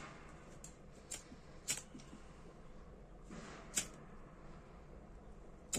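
Faint, scattered small clicks from a Dunhill Dress lighter being handled and worked on by hand. A short scraping rasp comes just before the sharpest click, about four seconds in.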